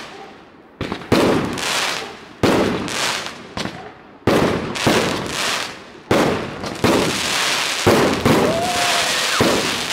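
Aerial fireworks going off in a rapid series: about nine sharp bangs of bursting shells, roughly one a second, each trailing off before the next.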